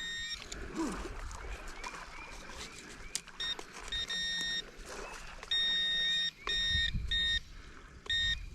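Metal detector's electronic tone signalling a metal target: a few short chirps, then a steady high beep sounding on and off, each beep lasting about half a second to a second.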